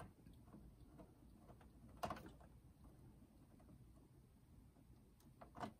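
Screwdriver working a screw inside a Sharp GF-8585 boombox's plastic chassis: faint scrapes and small ticks, with a sharper click about two seconds in and a couple more near the end.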